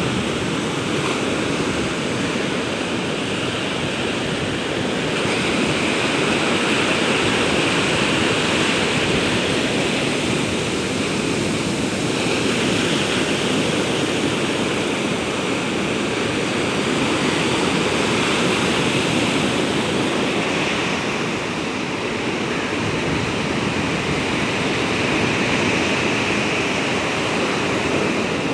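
Ocean waves breaking on a beach: a continuous wash of surf that swells and eases every few seconds.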